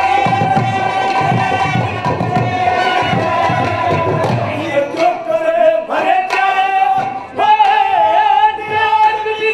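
Haryanvi ragini folk music: clarinet and harmonium hold a melody over dholak strokes, and about halfway through male voices take up the song with a wavering, high-pitched line.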